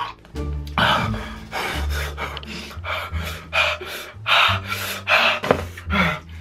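A person panting and gasping hard through bared teeth, quick breaths about two to three a second, from the burning of a hot pepper just eaten.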